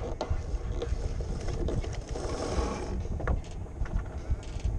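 Sailboat under way: wind buffeting the microphone and water rushing along the hull, with scattered clicks and creaks from the rigging and deck fittings. The water noise swells about halfway through.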